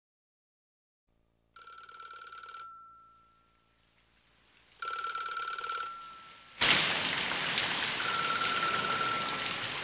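An old telephone's bell ringing in repeated bursts about a second long, three of them, unanswered. Partway through, heavy rain comes in suddenly and loudly, and the ringing carries on through it.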